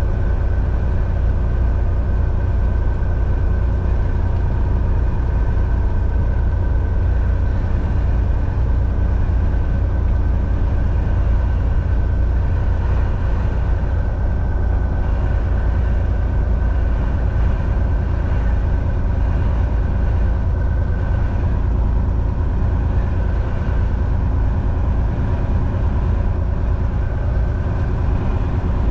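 Semi truck's diesel engine running steadily while driving, with road and tyre noise: a constant low rumble with steady engine tones over it.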